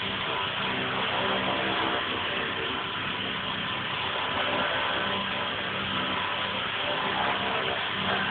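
E-sky King 2 electric RC helicopter hovering: a steady whine of its motor and whirr of its rotor blades, with the pitch drifting slightly up and down as the throttle is adjusted.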